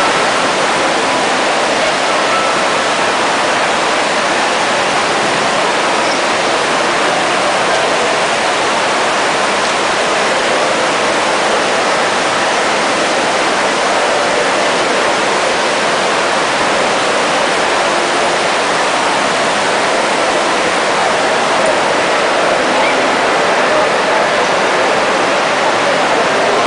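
Large statue fountain's water splashing into its basin, a steady rushing hiss, with a murmur of people's voices underneath.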